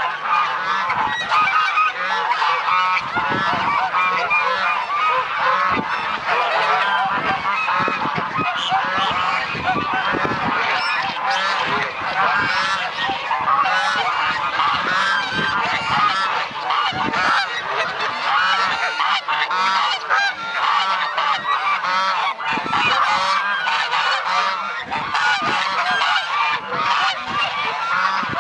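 A flock of domestic geese honking, many calls overlapping without a break.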